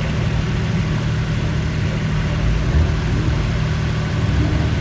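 Engine of a lifted off-road 4x4 running steadily at low revs as it sits on a concrete-pipe obstacle, a deep, even rumble.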